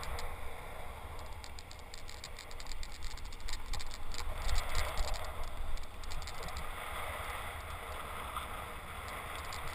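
Wind buffeting the microphone over the rattle of a kite buggy rolling across hard sand. The quick clattering eases about six seconds in, leaving a steadier rush of wind and wheels.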